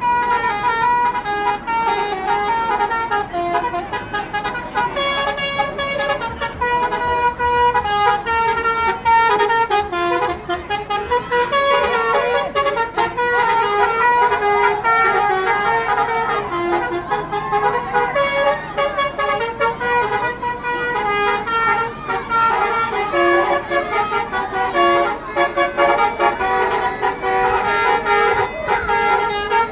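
Basuri V3 telolet musical bus horns playing tunes, several at once. Their stepped notes overlap in a steady, loud jumble of melodies.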